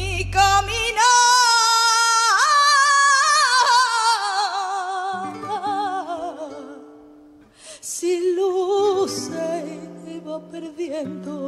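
A woman's solo voice sings a long, drawn-out line with heavy vibrato. She holds a high note, leaps higher, then winds slowly down in ornamented turns until she fades out about seven seconds in. After a brief gap she sings a shorter phrase, over soft, sustained instrumental accompaniment.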